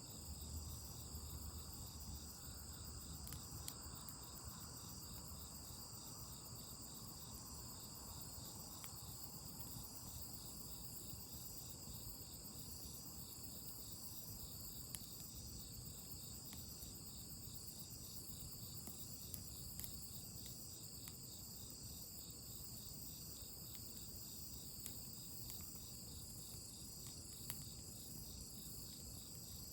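A steady chorus of crickets chirping high and pulsing, with a few faint sharp clicks or pops scattered through it.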